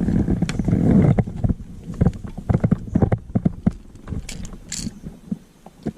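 Irregular knocks and taps on a fishing kayak, several a second, with a rush of water noise in the first second.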